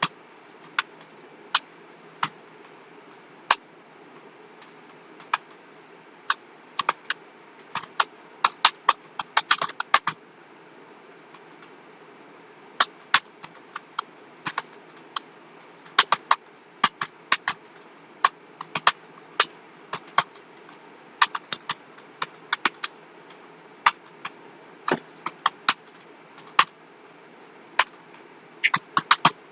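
Computer keyboard keys being typed on in uneven runs of clicks, some quick and some spread out, with a pause of a couple of seconds about ten seconds in.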